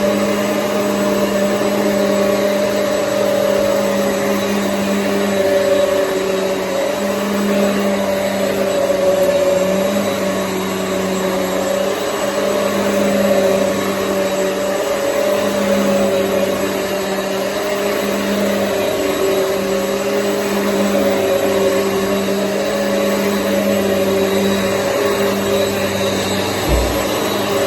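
Hoover EliteSwivel bagless upright vacuum cleaner running, a steady motor hum whose pitch wavers slightly.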